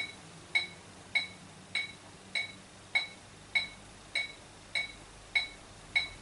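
Metronome click from the Amiga's MIDI sequencer software, ticking steadily at a little under two short, bright pitched clicks a second while recording is armed.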